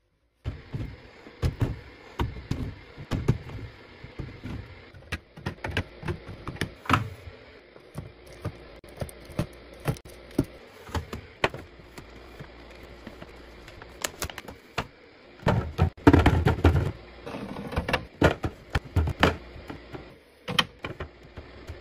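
Hands restocking a fridge: plastic containers, jars and items being set down and slid into place, giving irregular clicks, knocks and thuds, with a burst of heavier knocking about three quarters of the way through.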